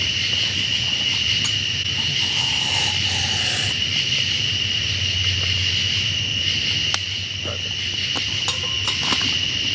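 Steady chorus of night insects, a continuous high trill, with a few faint clicks. About two seconds in, water is poured briefly into a freeze-dried meal pouch.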